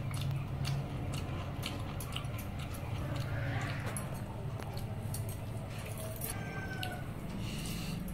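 Eating by hand from steel dishes: irregular small clicks and clinks of fingers and bangles against a steel plate and bowl, over a steady low hum.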